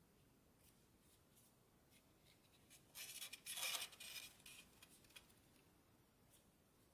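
Shiny origami paper rustling and crinkling as fingers fold and crease it: faint scattered crackles, then a louder burst of rustling about three seconds in that lasts about a second.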